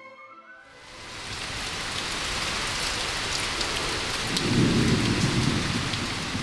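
Steady rain with scattered drop ticks, and a rumble of thunder rolling in about four and a half seconds in.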